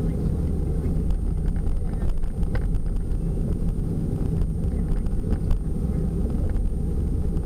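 Steady low rumble of engine and tyre noise inside a van's cabin while driving at road speed, with a few faint light ticks.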